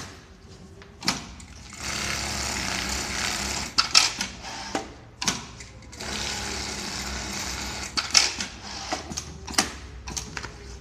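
Automatic pattern sewing machine running two short stitching cycles of about two seconds each, a steady whirring run each time, with sharp mechanical clicks and knocks between and around them.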